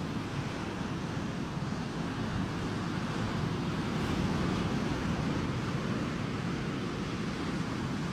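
Sea surf washing on the shore, a steady rushing noise that swells a little about four seconds in.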